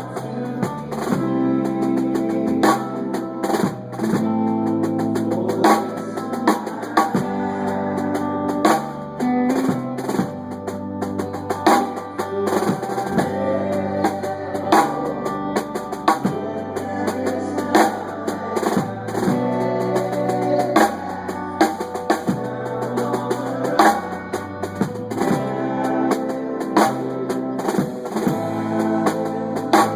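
Music with a full drum kit, snare and bass drum hits and a moving bass line, playing steadily at a loud level.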